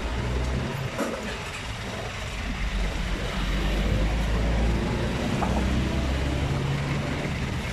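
A motor vehicle engine running: a steady low rumble that grows louder in the middle, with a faint click about a second in.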